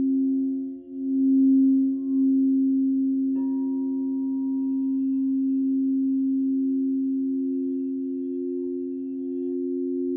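Crystal singing bowls ringing in two steady, sustained low tones that swell and dip slowly. A light tap about a third of the way in adds a fainter, higher ring.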